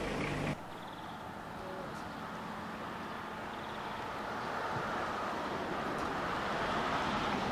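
A low hum stops abruptly about half a second in, leaving steady outdoor background noise: a featureless hiss that grows slowly louder.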